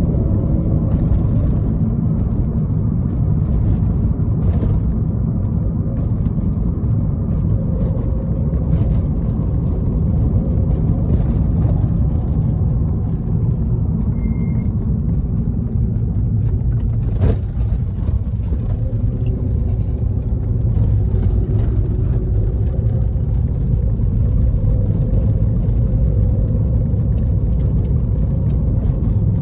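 A car driving along, its engine and tyre noise a steady low rumble. A single sharp click comes about seventeen seconds in, and a brief faint beep a few seconds before it.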